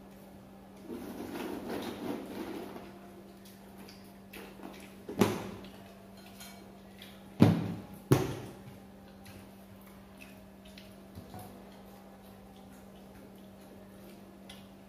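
Dishes and tableware being handled on a dining table during a meal: a brief rustle, then three sharp knocks or clinks, about five, seven and a half and eight seconds in, over a steady low hum.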